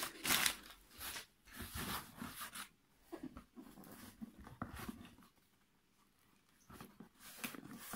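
Crumpled newspaper packing paper rustling and crinkling in several short bursts as hands push it aside in a cardboard box, then much quieter handling as an inner box is lifted out.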